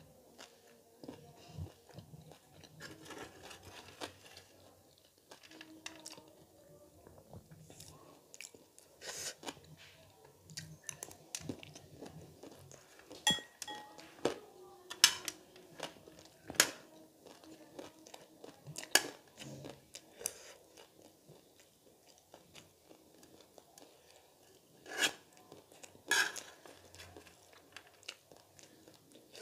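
Close-miked chewing and crunching of crunchy chatpate, a spicy Nepali snack of crushed dry noodles, with sharp cracks every few seconds as mouthfuls are bitten. A metal spoon clinks briefly against the dish.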